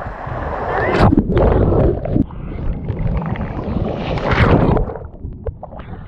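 Strong sea surf churning and splashing around a camera held at water level. There are loud rushes of water about a second in and again after four seconds.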